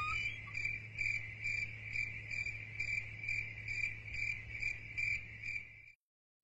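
Cricket chirping sound effect: a steady high trill pulsing about twice a second over a faint low hum, cutting off abruptly near the end. It is the stock comic cue for an awkward silence.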